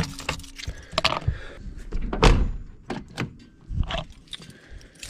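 Pickup truck's cab door shut with a thunk near the start, cutting off the chime, then scattered knocks, clicks and scuffs.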